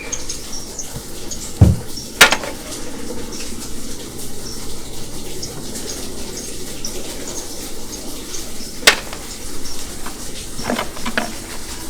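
Water running from a tap into a sink, with dishes and cutlery clinking sharply a handful of times while being washed.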